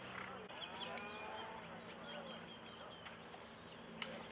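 Faint distant voices over a steady low hum, with one sharp click about four seconds in.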